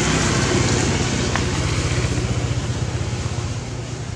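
A motor vehicle engine running steadily, a fast even low throb that grows slightly quieter toward the end.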